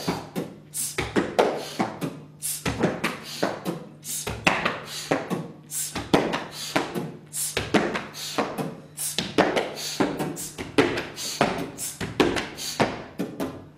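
A fast, irregular run of hard clicks, taps and knocks, several a second, over a faint steady hum.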